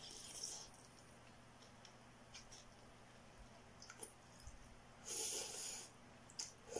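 Noodles being slurped: a short hissing slurp at the start and a longer, louder one about five seconds in, with a few faint mouth clicks between.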